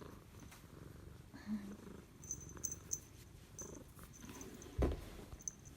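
Cat purring contentedly, a steady low rough rumble, with one short thump near the end.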